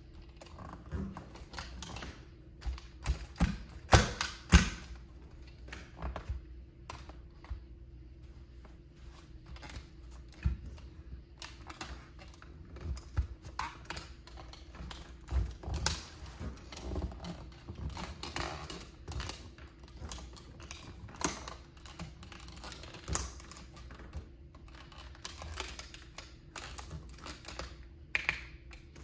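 Toy Plymouth Prowler model car clicking, creaking and cracking under bare feet as they press down and step on it, its wheels working loose. The clicks come in an irregular patter, with the loudest cracks about four seconds in, over a faint steady hum.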